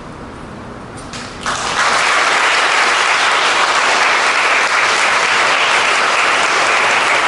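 Audience applause breaks out suddenly about a second and a half in and carries on steadily, loud and dense.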